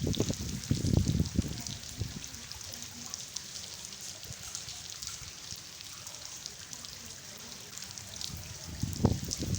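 Rain falling steadily, with many small drop ticks on a hard floor over a constant hiss. There are low rumbling bursts in the first couple of seconds and again near the end.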